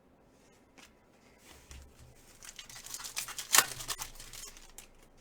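Foil trading-card pack wrapper being torn open and crinkled by hand, a run of rustling that builds up to a sharp snap about three and a half seconds in, then fades.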